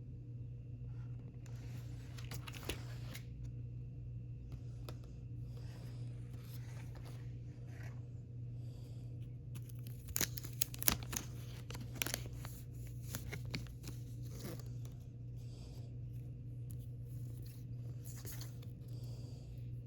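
Album packaging being torn open and crinkled by hand, in bursts of crackling, loudest about halfway through, over a steady low hum.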